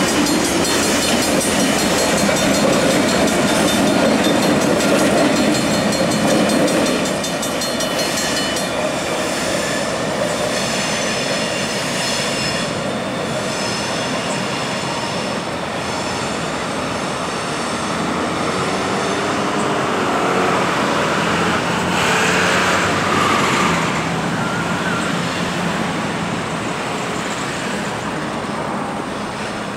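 Wisconsin Central diesel freight train passing: the locomotive's engine running and the cars rolling over the rails. After about seven seconds it is heard farther off as a steadier, slightly quieter rumble.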